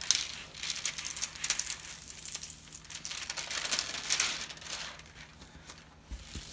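Clear plastic protective film on a diamond painting canvas crinkling in irregular rustles as hands smooth and press it flat. The crinkling dies down near the end.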